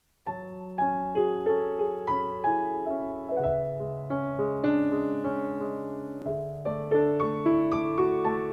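Background piano music: slow notes over held bass notes, beginning about a quarter second in.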